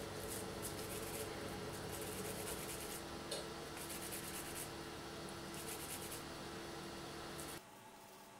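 Hands rolling and pressing a moist minced-meat and grated-potato köfte mixture between the palms, a soft rubbing sound repeated in short patches over a steady low hum. Both cut off abruptly near the end.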